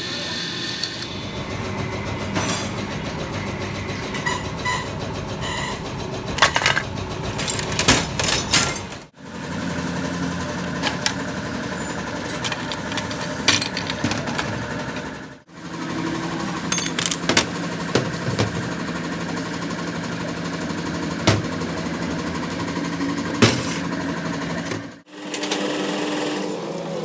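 A motor-driven workshop machine running steadily, with scattered sharp metal clicks and knocks. The sound drops out briefly three times.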